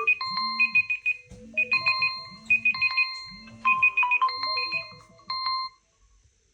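Smartphone alarm tone playing: a bright electronic pattern of quick repeated beeps and short held notes, in groups about once a second, with a low hum swelling and fading beneath. It stops about five and a half seconds in.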